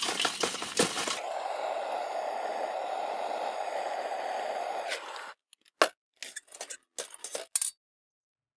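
Charcoal briquettes clattering into a metal chimney starter for about a second. Then a handheld gas torch hisses steadily for about four seconds while it lights the fire-starter cubes, and cuts off suddenly. A few scattered clicks and knocks follow.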